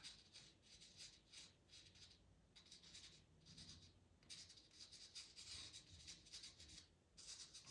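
Faint scratching of a pastel pencil on PastelMat paper: short quick strokes in clusters, with a few brief pauses.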